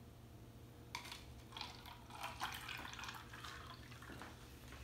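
Water poured from a half-cup measuring cup into a foam cup: a faint, uneven trickle and splash that begins about a second in.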